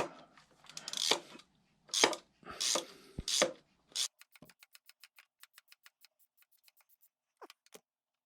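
Hand tools working on a small motorcycle engine's cam bolt. A few loud scrapes and knocks of metal come first; then, about four seconds in, a ratchet wrench clicks quickly, about five clicks a second, for some three seconds and fades out.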